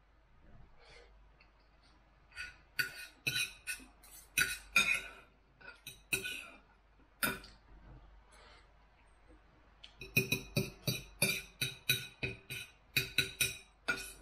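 Knife and fork clinking and scraping on a plate while cutting and eating food, in clusters of sharp ticks with quieter stretches between, busiest near the end.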